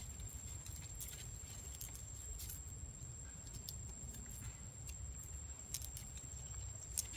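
Forest ambience: a steady low rumble with a thin, steady high-pitched whine over it, and a few scattered soft ticks and rustles.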